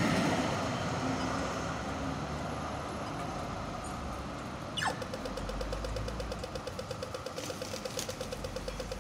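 Street traffic with a tram passing at first. About five seconds in, an Australian pedestrian crossing signal gives its falling electronic 'laser' chirp and starts rapid ticking for the walk phase, over the low hum of waiting vehicles.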